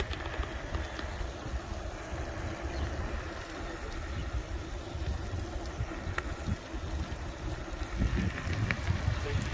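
Wind buffeting the microphone over the low rumble of a Jetson Bolt Pro electric bike riding on asphalt.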